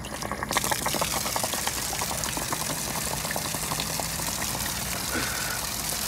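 Water gushing from the anode-rod port of a 12-gallon Suburban RV water heater and splashing onto concrete. It starts suddenly about half a second in, as the rod comes free, with some spattering at first: the tank is draining and flushing out sediment.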